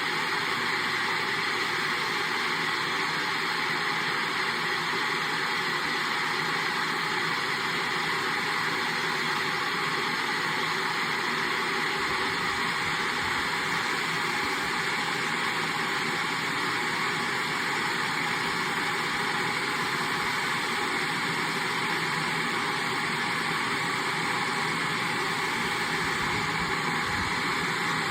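Kettle boiling: a steady, even rushing noise that holds at the same level throughout.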